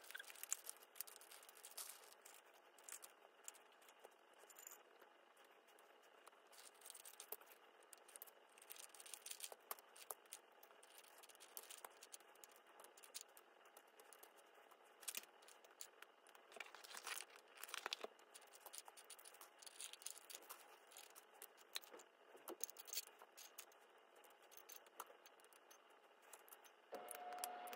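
Faint, scattered clicks and light rattles of plastic pens and markers being picked up, knocked together and set down in piles on carpet. A few steady held tones come in near the end.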